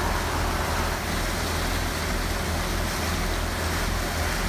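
A trawler's diesel engines running steadily under way, a constant low hum, with water rushing past the hull.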